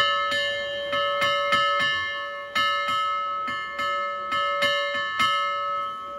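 A metal bell rung by hand over and over, about three strikes a second with a short break about two seconds in. The last strike comes about five seconds in, and the bell then rings on and fades.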